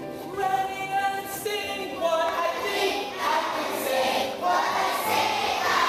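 A group of children singing a song together in held notes that step from pitch to pitch.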